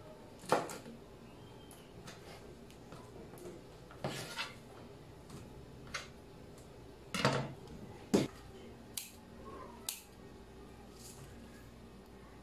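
Scattered sharp clacks and knocks of a kitchen knife and cut long beans being handled on a wooden chopping board, about seven in all, irregularly spaced with quiet gaps between, the loudest about half a second in and just after eight seconds in.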